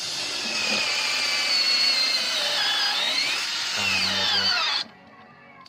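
Electric drill boring a hole into wood for a lag screw. The motor's whine sags and rises again as the bit takes load, then cuts off sharply near the end.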